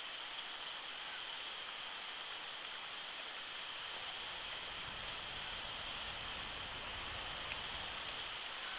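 Steady hiss from an outdoor nest-camera microphone, with a low rumble from about five to eight seconds in and a couple of faint ticks.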